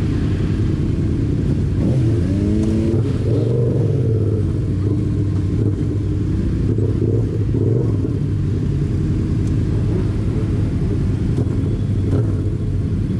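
Car engine running with a steady low rumble, its pitch rising and falling a few times as it revs, mostly between about two and eight seconds in.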